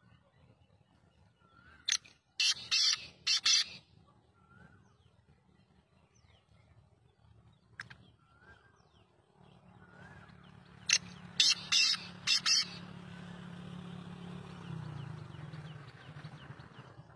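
Caged black francolin calling twice, about nine seconds apart. Each call is a short sharp note followed by three harsh, grating notes.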